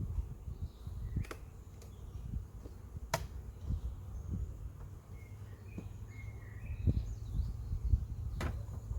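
Uneven low rumble with three sharp clicks, about a second in, about three seconds in and near the end, and a few faint short bird chirps in the middle.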